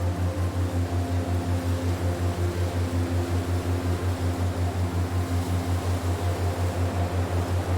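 Relaxation soundscape: a low hum pulsing evenly about five or six times a second over a steady hiss, with faint soft tones drifting in and out above it.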